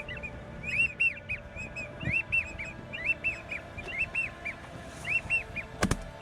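American wigeon whistling over and over, short high wheezy whistles in groups of two or three. A single shotgun shot rings out near the end, the loudest sound.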